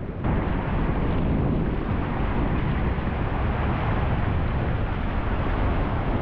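Rapid whitewater rushing, mixed with wind noise on an action camera's microphone. It is a loud, steady rush that steps up sharply just after the start.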